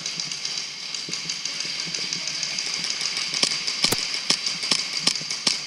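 Indoor airsoft gunfire: a steady high rattle of electric guns firing. From about three and a half seconds in it is broken by a string of irregular sharp cracks of shots and BB hits.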